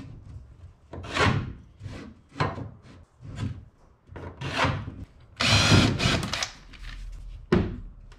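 A pencil scratching five short strokes on plywood along a speed square. Then a cordless drill runs for about two seconds into the quarter-inch plywood side panel, with a short second burst near the end.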